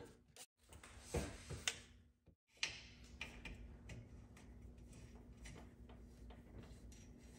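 Faint, irregular small clicks and ticks of hand work on small metal parts, over a faint steady hum. Two sharper clicks come about a second in.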